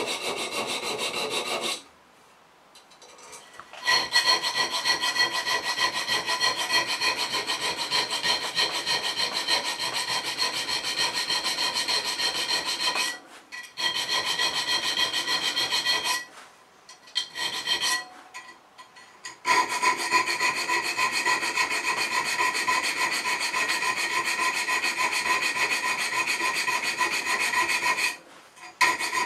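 Needle file rasping back and forth across the steel spine of a knife blade held in a vise, cutting decorative notches: fast, even scraping strokes with a steady ringing note through them. The filing stops briefly several times, the longest break about two seconds in.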